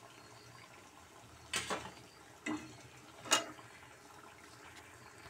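Hot oil sizzling faintly in a kadhai while fried moong dal pakoras are lifted out with a steel slotted spoon. Three sharp metal clinks of the spoon come about a second apart, the last the loudest.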